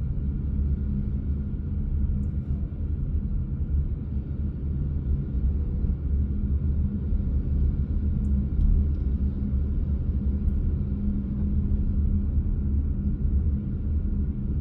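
Steady low rumble of a car driving slowly along a street: engine and tyre noise with a constant hum, heard from inside the moving car.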